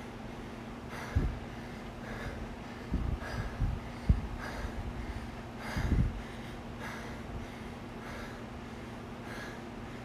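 A person breathing hard in a steady rhythm, about one breath a second, over a steady low hum. Several low thumps come through between about one and six seconds in.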